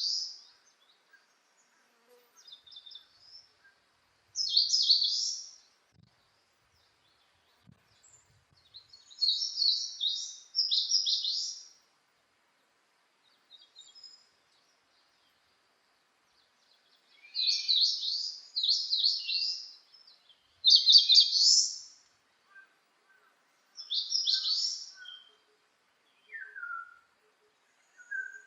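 Songbird singing short, high, rapid warbled phrases of about a second each, repeated with pauses of a few seconds. Faint, lower chirps come between the phrases, over a background with the noise filtered out.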